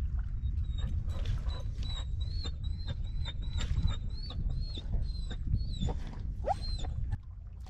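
A dog whining in a run of high-pitched whimpers, each rising and falling in pitch, over a low rumble.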